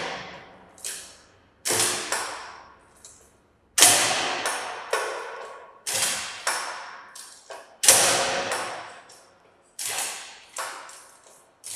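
Brake on a Charpy impact testing machine's swinging pendulum being applied: a string of sudden metallic rubbing sounds, one every second or two, each dying away, as the pendulum is brought to rest.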